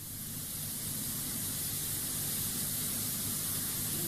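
Steady hiss with a faint low hum from the test recording's background noise, fading in over about the first second and then holding even.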